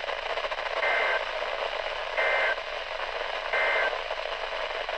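Three short warbling data bursts, about a third of a second each and just over a second apart, over a weather-radio receiver's steady static. They are the EAS/SAME end-of-message tones that close a NOAA Weather Radio alert.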